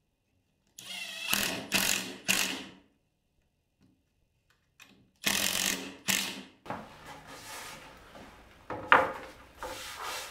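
Cordless driver spinning screws home in short bursts: three quick runs, then two more a few seconds later, each with a steady high whine. Quieter shuffling follows, with one sharp wooden knock near the end.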